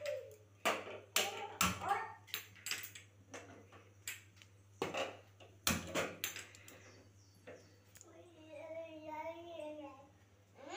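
Irregular sharp clicks and metal knocks as an aluminium pot and gas stove are handled, then a high voice in the background about eight seconds in.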